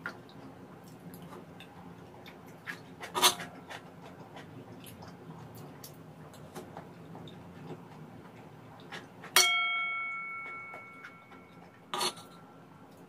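A metal spoon clicking and scraping against a pan while eating, with occasional sharp clicks. About two-thirds through, one clink rings on with a clear metallic tone and fades over about two seconds.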